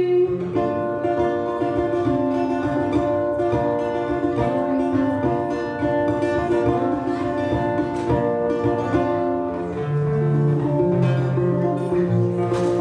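Instrumental passage of the song with plucked guitar over held chords and no voice: a break between sung lines.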